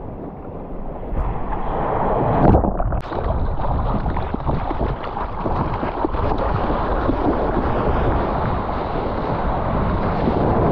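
Seawater rushing and splashing close to the microphone as a surfboard rides a wave through whitewater, with wind buffeting the microphone. It starts softer and turns louder and more churning about two and a half seconds in.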